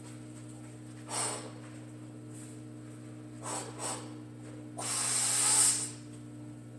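A weightlifter breathing hard under a loaded barbell while setting up for a squat: a short breath about a second in, two quick ones at about three and a half seconds, then a longer, louder breath about five seconds in, drawn to brace before going down. A steady low hum runs underneath.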